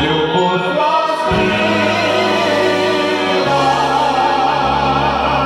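Male vocal duet holding a long final note with wide vibrato over a wind band's sustained chords. The bass chord underneath shifts about three and a half seconds in.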